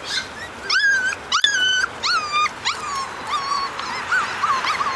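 Four-week-old Portuguese Water Dog puppies whining, a run of about ten high-pitched cries. The first few are longer and louder, each rising and then held. The later ones are shorter, quicker and fainter.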